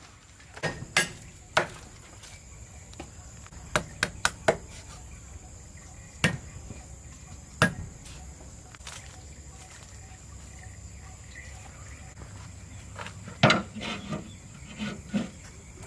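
Scattered sharp knocks and taps over a faint steady background. Four come in quick succession about four seconds in, there is a quiet stretch in the middle, and the loudest knock comes near the end, followed by a few softer ones.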